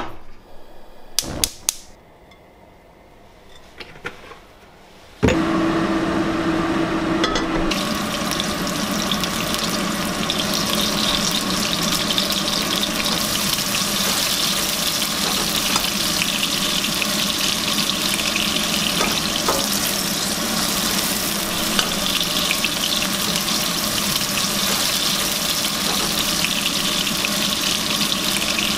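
A few clicks from a gas stove's knob, then about five seconds in a sudden, loud and steady sizzle of whole surf perch frying in hot oil in a pan.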